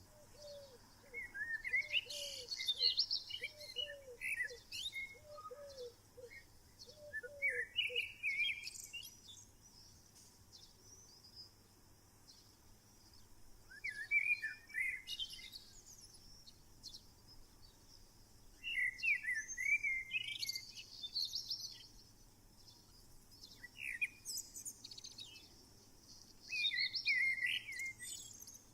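Wild songbirds singing: short warbled phrases come every five seconds or so, each with high twittering on top. A softer run of low repeated notes sounds through the first eight seconds.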